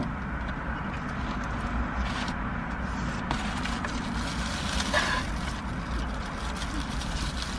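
Steady low hum of a car's cabin, with faint chewing and light rustles of a paper burger wrapper, one a little louder about five seconds in.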